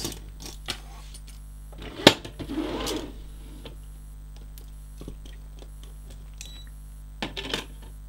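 Russian metal handcuffs being handled and set down on a scale: a sharp clack about two seconds in, then a brief metallic rattle and a few light clicks.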